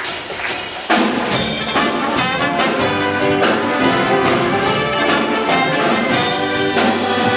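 Show band playing an instrumental passage of a musical-theatre number, with brass chords over a steady drum beat.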